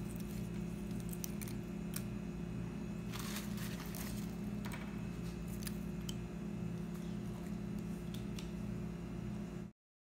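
Steady low hum of room background noise with faint scattered clicks and a brief rustle about three to four seconds in, then the sound cuts off suddenly near the end.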